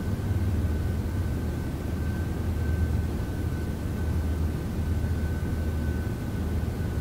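Steady machine-like drone: a low hum under an even hiss, with a thin high whine held steady throughout.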